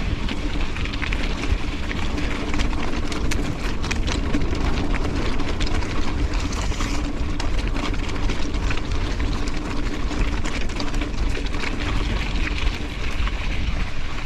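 Mountain bike being ridden along a dirt trail: heavy wind rumble on the microphone, tyre noise and frequent small clicks and rattles from the bike, over a steady low hum.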